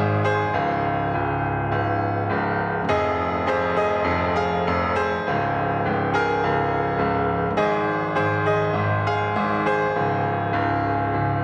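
Background piano music, with notes struck every second or so over sustained low chords.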